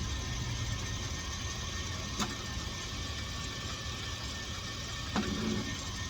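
A vehicle engine idling steadily in the background, with two sharp clicks, one about two seconds in and one near the end.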